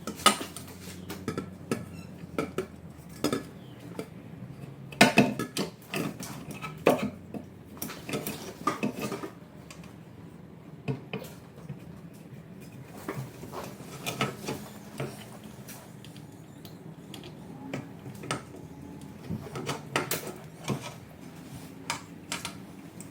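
Irregular metallic clinks and knocks of hand tools and bolts as an intercooler is fitted back in and bolted up, with a busier run of clanks around a quarter of the way in and another near the end.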